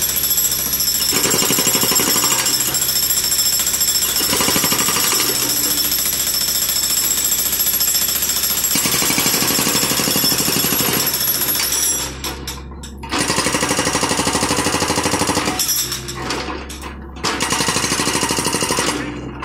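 Hydraulic breaker hammer on a John Deere 50G compact excavator pounding concrete in rapid, even blows, with the excavator's engine running steadily underneath. The hammering stops briefly twice in the second half, then starts again.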